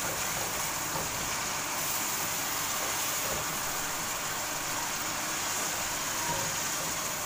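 Chopped onions sizzling steadily in hot oil, frying toward golden to cook off their rawness.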